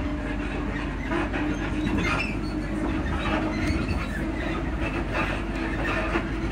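Inside a Class 334 electric multiple unit while it runs: a steady low rumble and a constant hum, with irregular knocks and rattles from the carriage suspension.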